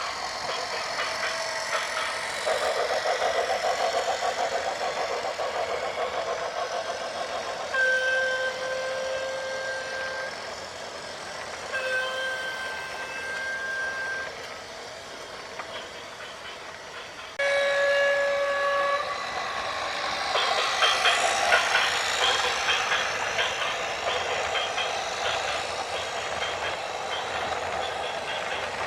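A horn sounds three times, each a steady blast of about two seconds with several notes together, over continuous rattling, clattering noise that grows louder near the end.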